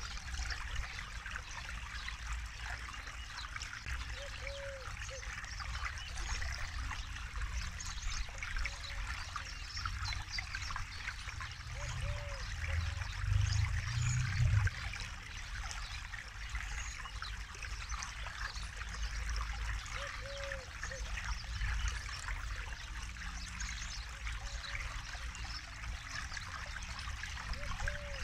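Forest river flowing steadily over stones, an even trickling and splashing of water. A low rumble swells briefly about halfway through, and a short low note repeats faintly every few seconds.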